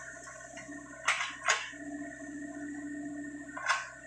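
Sany SY55C mini excavator running steadily under work, its engine and hydraulics giving a constant hum. Three short whooshes cut across it: two close together about a second in, and one near the end.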